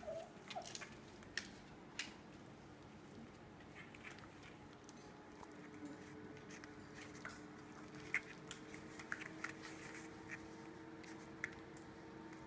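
Four-week-old puppy scuffling on a rubber mat and mouthing a fabric toy: a scattered string of faint light clicks and taps, with a short squeak at the very start.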